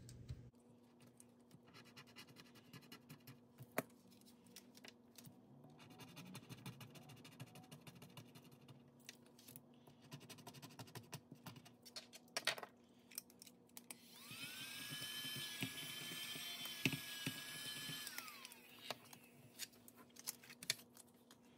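Quiet handling sounds, light taps, clicks and paper rustles, while a task is worked through by hand. About two-thirds of the way in, a small electric motor whirs for about four seconds: it spins up, holds a steady whine, then winds down.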